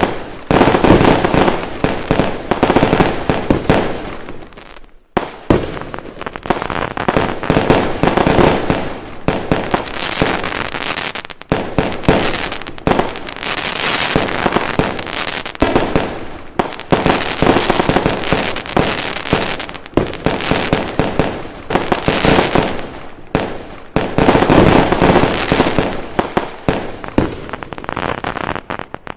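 Fireworks going off in dense volleys of bangs and crackling, with a short lull about five seconds in.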